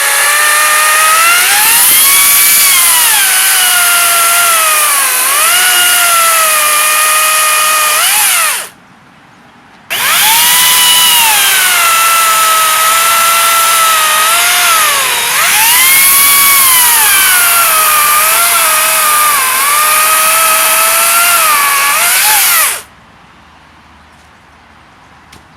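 Makita cordless battery chainsaw cutting wood: a high motor-and-chain whine that sags in pitch as the chain is loaded in the cut and climbs again as it frees. There are two cuts, the first about eight seconds long and the second about thirteen, with a short pause between, and it stops shortly before the end.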